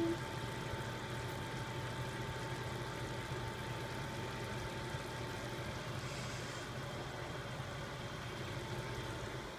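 Kitchen range hood fan running over the stovetop: a steady low hum with a faint constant whine.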